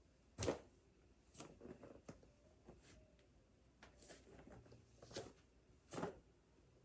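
Soft rustles and brushing sounds of clothing and body movement during full prostration bows, several short swishes in a few seconds, the loudest about half a second in and again at about six seconds.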